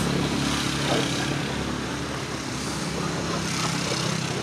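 Motorcycle engines running in passing street traffic: one engine fades over the first couple of seconds and another draws close near the end.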